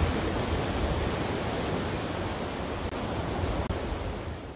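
Steady rushing noise of surf with a low rumble, dropping out briefly twice near the end.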